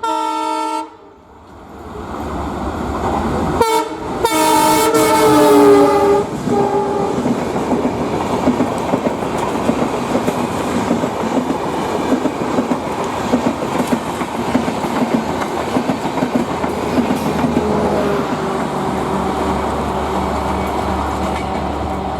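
Diesel locomotive horn sounding briefly, then a second, longer blast that bends down in pitch as it ends. It is followed by a passenger train running past, with wheels clattering over the rail joints and a steady rumble that lasts the rest of the time.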